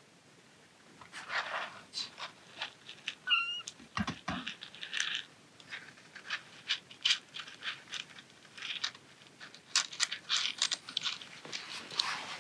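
Young kitten mewing in short cries while its sore, swollen bottom is wiped with tissue, among many short rustles of tissue paper and clicks of pellet litter shifting in a plastic litter box, starting about a second in.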